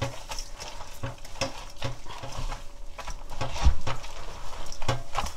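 Hand scrubbing and squeezing gamtae seaweed with coarse salt in a stainless-steel bowl of water: irregular wet squelching and sloshing as the mud is rubbed out, with one louder thump about two-thirds of the way in.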